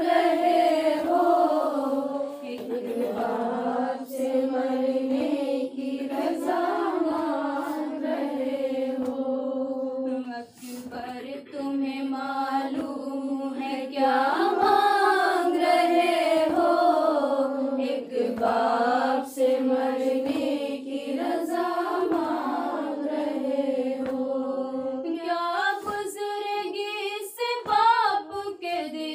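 A woman's voice chanting an unaccompanied Urdu lament (nauha) for Ali Akbar, a slow melody with long, sliding held notes.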